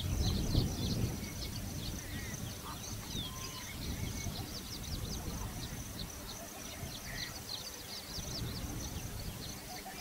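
Outdoor ambience of birds chirping: many short, quick, high downward chirps throughout, over a steady high-pitched hum. A low rumble is the loudest thing in the first second.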